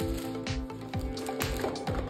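Background music with a steady beat: low thumps about twice a second under held tones.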